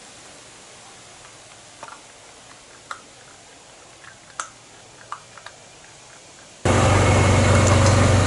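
Faint outdoor hiss with a few scattered sharp clicks, then an abrupt cut, about two-thirds of the way in, to a utility vehicle's engine running steadily and loudly, heard from the seat.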